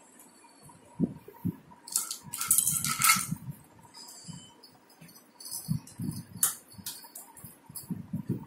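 Plastic toy play-kitchen being handled: light clicks and knocks as a utensil is hung on its hooks and parts are touched and moved, with a burst of clattering about two to three seconds in and another sharp click about six seconds in.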